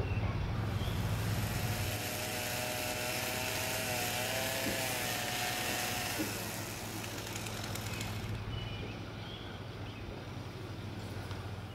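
A motor running with a steady low hum; about two seconds in, a broad rushing noise takes over, with a wavering whistle-like tone through the middle, and it all cuts off suddenly at the end.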